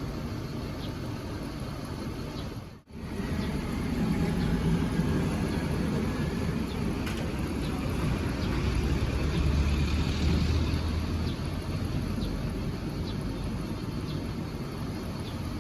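A road vehicle passes with a low engine rumble that swells and then eases off. The sound cuts out for a moment about three seconds in.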